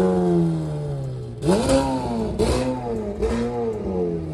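A vehicle engine revving: its note sinks slowly, then climbs sharply about one and a half seconds in, with two more short rises and falls before settling lower.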